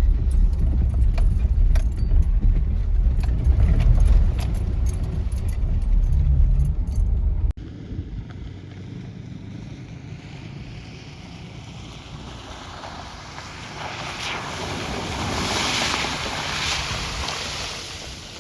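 Jeep driving through mud and water on a dirt trail: a loud low engine and tyre rumble with many sharp ticks against the body, which cuts off suddenly about seven seconds in. A quieter rushing noise follows, swelling near the end as water sprays up.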